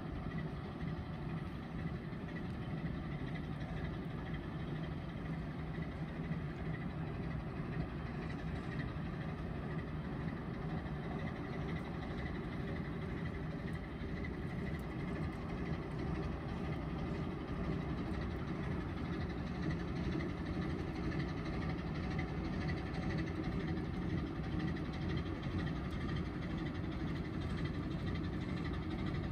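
Slow-running marine diesel engine of an inland cargo barge running steadily under way, a continuous low drone.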